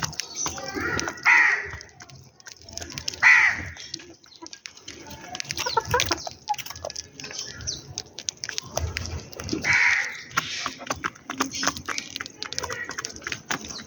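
Sparrows chirping steadily at a feeding spot, broken three times by a louder, harsh call from a larger bird, about one, three and ten seconds in.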